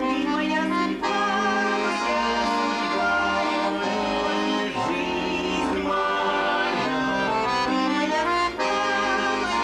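Instrumental music led by accordion, playing a melody over held chords and a moving bass line.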